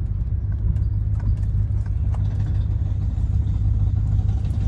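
2004 Infiniti QX56 rolling at low speed with a low rumble and irregular clicking and popping from the drivetrain. The fault is heard only at lower speeds, and the owner suspects the drive shaft.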